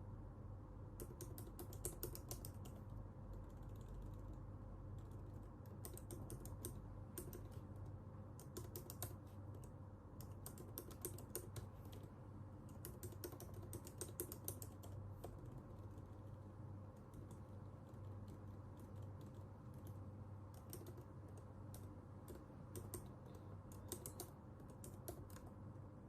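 Computer keyboard typing in quick runs of keystrokes with short pauses between them, over a steady low hum.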